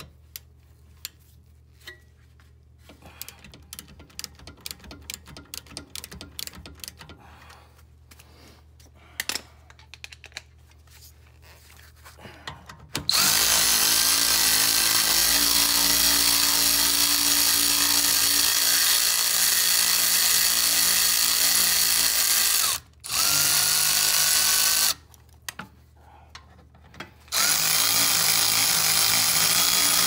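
A hand ratchet clicking in short spells as it breaks loose and turns out a 7 mm Allen brake caliper guide bolt. About halfway through, a cordless power tool starts a loud, steady whine as it spins the bolt out. It stops twice briefly near the end and starts again.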